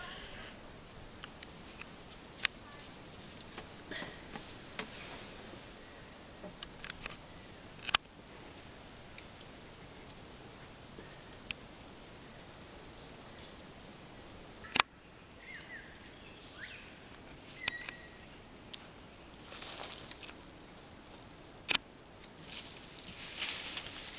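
Steady high-pitched insect chorus, broken by a few sharp clicks. About fifteen seconds in it switches abruptly to a different insect sound, a fast pulsing trill over a thinner hiss.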